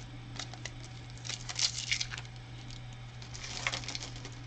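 Small plastic Lego pieces clicking and rattling as they are handled, with two denser bursts of clatter, about a second and a half in and again near the end. A low steady hum runs underneath.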